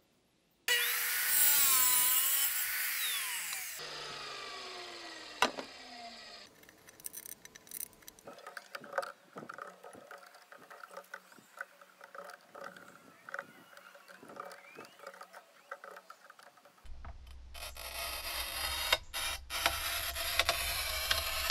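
Wet tile saw's diamond blade cutting a tile, its pitch dipping and recovering under load, then winding down with a falling pitch after it is switched off. Faint clicks and taps follow. Near the end, the scoring wheel of a manual tile cutter scrapes across a tile.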